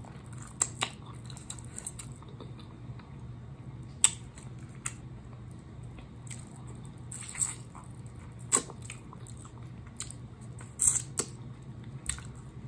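Close-up chewing and lip smacking on hot-sauced chicken wings, with scattered wet clicks and smacks, the sharpest about four seconds in.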